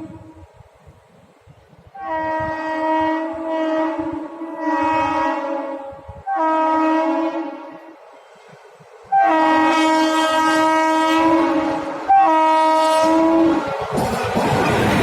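Duronto Express locomotive horn sounding four long blasts, the last two much louder as the train closes in. Near the end the horn stops and the loud rush of the train passing at speed takes over.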